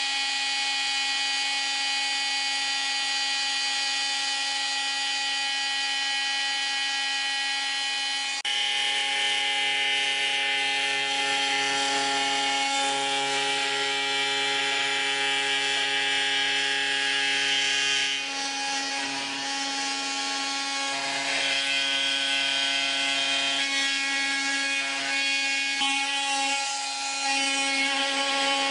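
Bosch GOP 250 CE corded oscillating multi-tool running steadily and working material with different accessories: a constant buzzing whine whose character changes abruptly about a third of the way in and again past the middle as the blade or material changes.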